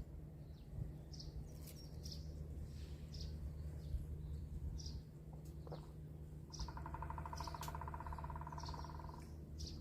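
Small birds chirping, short high calls repeating about once a second, with a rapid trill joining in for a few seconds past the middle. A steady low hum runs underneath.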